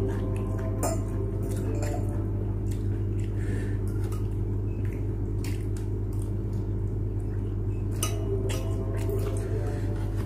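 Forks and spoons clinking and scraping on ceramic plates as two people eat noodles, in many short, irregular clicks over a steady low hum.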